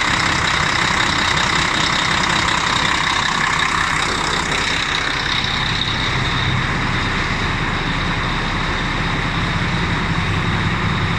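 Volvo VNL's D12 inline-six diesel idling steadily with its diesel particulate filter removed. The drive belt no longer squeals.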